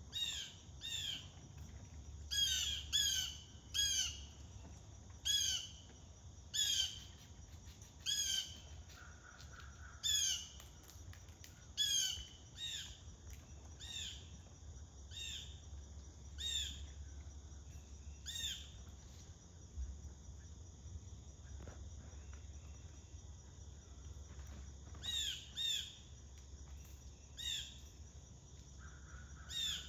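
A bird repeating short, harsh squawking calls that slide downward in pitch, often in quick pairs, sparser in the middle and picking up again near the end, over a steady high insect trill.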